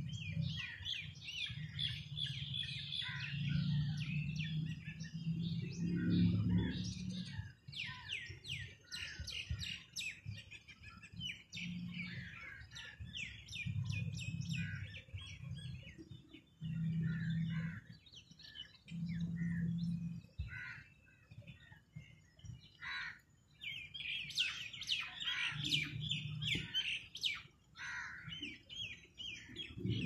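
Several small birds chirping and twittering in quick, overlapping calls, thickest near the start and again near the end. A low hum comes and goes underneath in stretches of a second or two.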